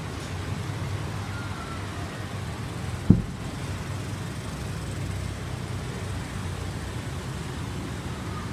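Steady road traffic noise from passing motorbikes and cars, with a single sharp thump about three seconds in.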